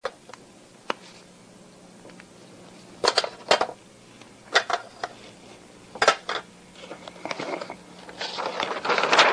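Sharp taps and clicks of a marker on a flip-chart pad, a few at a time spread through the first six seconds. From about seven seconds in, paper rustling that grows louder as a flip-chart sheet is lifted and turned over.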